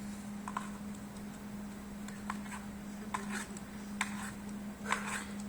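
Scattered light clicks and taps, about eight in all at irregular intervals, over a steady low hum.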